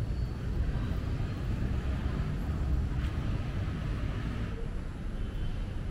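Outdoor ambience with a steady low rumble and a few faint high tones.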